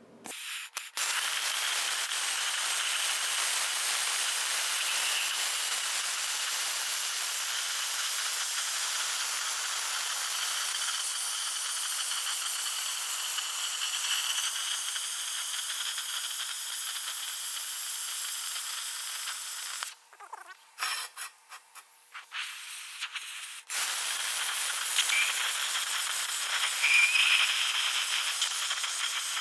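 Plasma cutter cutting through a rusty steel car wheel, a steady hiss of the air arc. About twenty seconds in it cuts out and sputters in short stops and starts for a few seconds, then runs steadily again.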